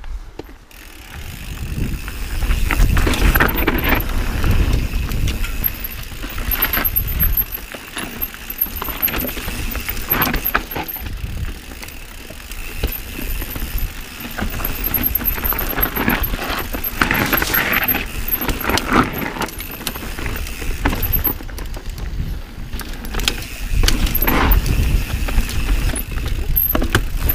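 Mountain bike ridden hard down a rough trail: tyres rumbling over dirt and rocks, with chain and frame rattling and frequent knocks from impacts, over a steady low rumble of wind on the camera. It gets louder about two seconds in.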